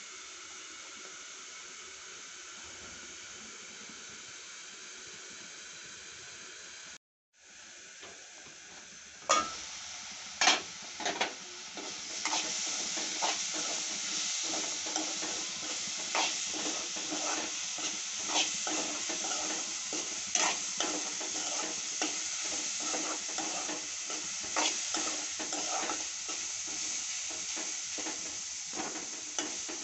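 Chopped onions and green chillies frying in oil in a pan: a steady sizzle, softer at first with the lid on. After a brief break it is louder, with a spoon knocking and scraping against the pan as the onions are stirred.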